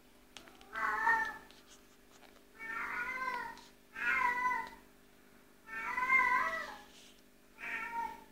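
Domestic cat meowing five times, each meow lasting about half a second to a second with short pauses between.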